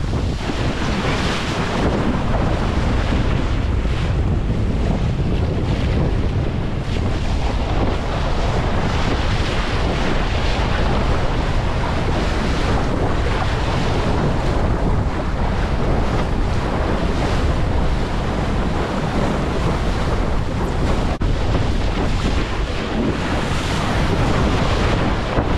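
Strong wind buffeting the microphone over the rush and splash of choppy water under a windsurf board sailing fast. The noise is loud and steady throughout, with no let-up.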